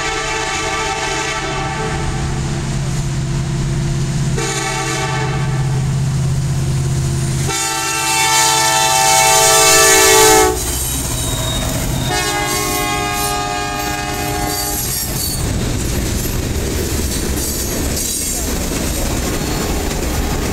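Norfolk Southern freight train passing, led by SD70ACe 1074: its air horn sounds in long blasts over the diesels' rumble. One blast ends about two seconds in, another runs from about four to ten seconds in and is loudest as the locomotives go by, and a last one runs from about twelve to fifteen seconds in. After that come the steady rumble and clatter of freight cars rolling past.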